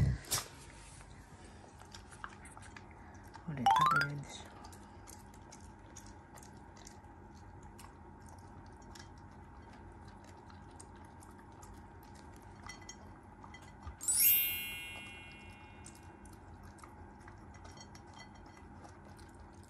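Shiba Inu eating dry kibble from a stainless steel bowl: a quiet, uneven run of crisp crunching clicks and clinks. A rising tone sweeps up about four seconds in, and a bright chime rings out and fades about fourteen seconds in.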